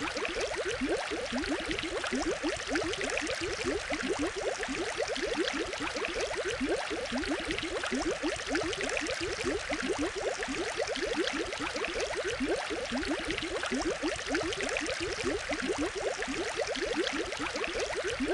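Steady water bubbling: a dense run of small rising blips over a constant hiss, without a break.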